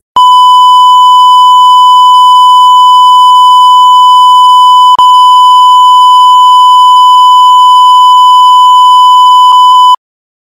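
A loud, harsh electronic beep held at one steady pitch for about ten seconds, with a momentary break about halfway through.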